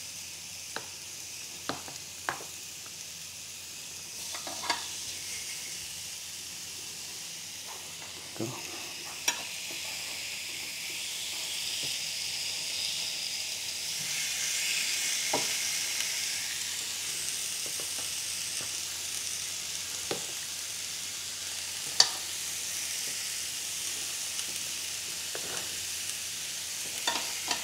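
Chicken breast pieces sizzling on the preheated grill plate of a Ninja Foodi Max health grill, a steady hiss that grows louder around the middle as more pieces go on. Metal tongs click against the plate now and then, the sharpest click about three-quarters of the way in.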